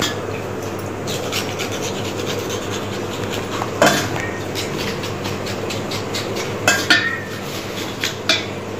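A knife scraping the singed, blackened skin off a mutton trotter over a steel bowl of water. It goes in repeated short rasping strokes, with a few sharper clinks of metal on metal about four, seven and eight seconds in, over a steady low hum.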